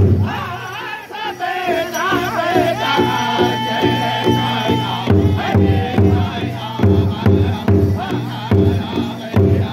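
Powwow drum group singing together in high, wavering voices over the steady unison beat of a large hide powwow drum struck by several drumsticks. The drumbeat is softer in the first half and comes harder from about halfway.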